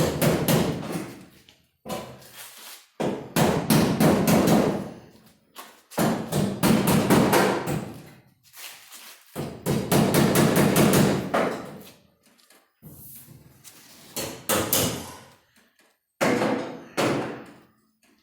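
Body hammer rapping quickly on a sheet-metal quarter panel, several hits a second, in runs of about two seconds with short pauses between, the panel ringing under the blows. The metal is being worked so the new panel lays down flush before welding.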